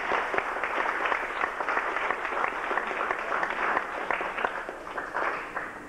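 Audience applauding: many hands clapping together at a steady level, which thins and dies away near the end.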